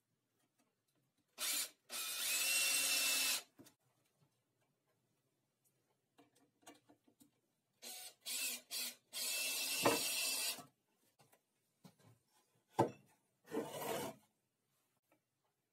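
Weathered wooden pallet boards scraping and rubbing against each other in several bursts, some with a faint squeak, and a sharp wooden knock near the end.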